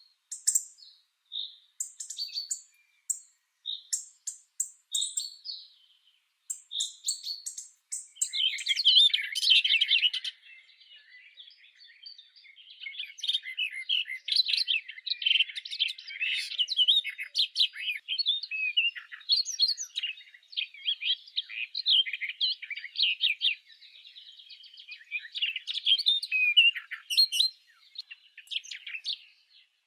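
Small birds chirping: short, sharp high chirps repeated at intervals for the first several seconds, then a dense, busy twittering of many overlapping notes from about eight seconds in.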